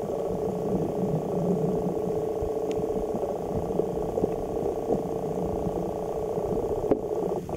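Steady, muffled underwater rumble with a faint crackle, the sound of water heard by a camera held under the surface, with a sharp click near the end.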